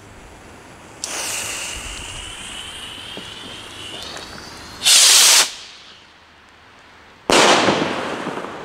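Firework rockets. A sharp crack about a second in trails off into a long hiss; about five seconds in comes a loud half-second whoosh of a rocket launching; about seven seconds in a loud bang of a rocket bursting dies away in an echo.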